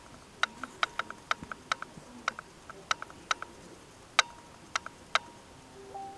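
A run of about twenty sharp, irregularly spaced clicks over five seconds, the loudest about four seconds in, followed near the end by a short low tone.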